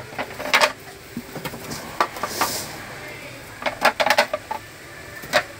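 Melamine plates and serving trays clacking and knocking against each other as they are handled, with a brief scraping slide about halfway through.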